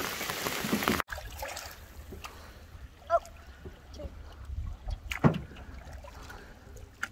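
For the first second, rain pattering on the river surface. Then, after a cut, a canoe being paddled: soft paddle strokes and drips over a low rumble, with a single sharp knock about five seconds in.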